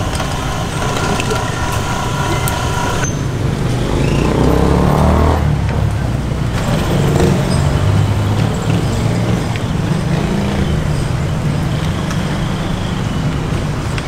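Road traffic: vehicle engines running steadily, with one engine revving up about four seconds in. Over the first three seconds a steady hum carrying several tones stops abruptly.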